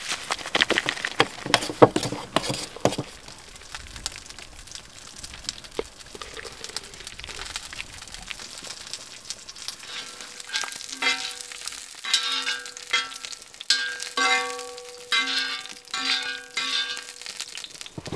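Spoon stirring and scraping mac and cheese in a metal camp pan. From about ten seconds in, the strokes come quickly, each one setting off a ringing tone from the pan.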